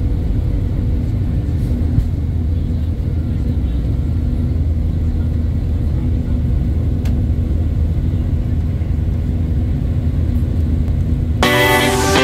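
Jet airliner's engines at take-off thrust, a steady low rumble heard from inside the cabin as the aircraft lifts off and climbs. Guitar music comes in near the end.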